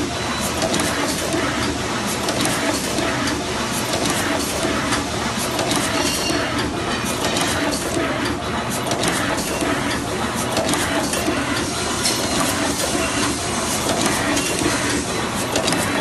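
EW-21C automatic two-wire crimping machine running and turning out crimped wires: a busy, steady clatter of quick clicks and clacks over a constant mechanical whir.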